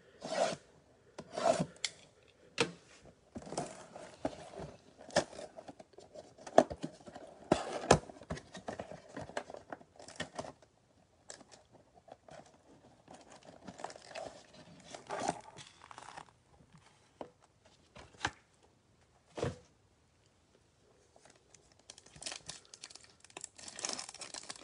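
Cardboard trading-card box being slit with a Westcott cutter and torn open, in irregular scraping, rasping strokes. Near the end a foil card pack crinkles as it is torn open.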